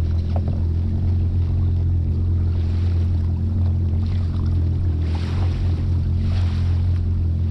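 Personal watercraft engine running steadily at low speed, a constant low hum. A few brief hissing rushes of water or wind noise pass over it.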